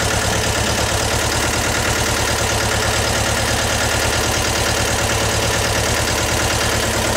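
Mahindra Jivo 245 DI compact tractor's two-cylinder diesel engine idling steadily, with an even, rapid firing pulse.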